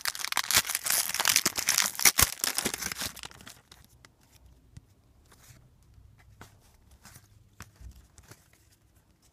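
Wrapper of a 2013 Topps football card pack being torn open and crinkled for about three seconds, then only a few faint light clicks.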